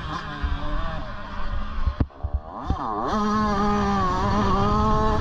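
Motocross bike engine running hard under throttle, with low wind rumble on the helmet microphone. About two seconds in the throttle is briefly shut. The engine then revs back up and holds steady at high revs.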